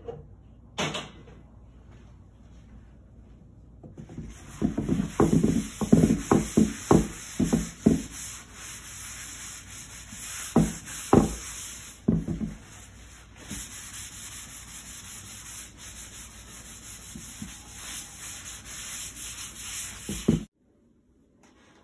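Hand and rag rubbing oil into the outside of a power-carved cedar bowl: a knock about a second in, then a run of quick back-and-forth wiping strokes, a few more a little later, and steadier rubbing that stops suddenly near the end.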